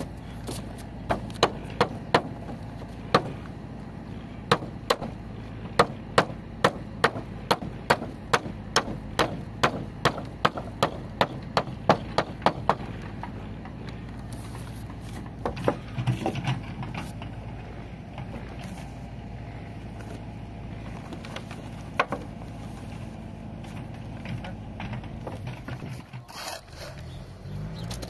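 A run of sharp knocks, about two a second for roughly twelve seconds, then a short cluster of knocks and later a single one.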